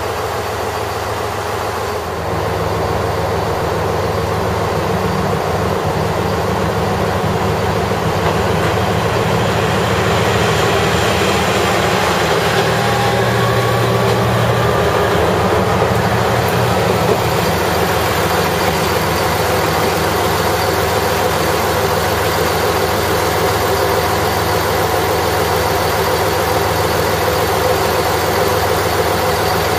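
Diesel train engine idling at a station platform: a steady low rumble with a constant hum, a little louder from about two seconds in.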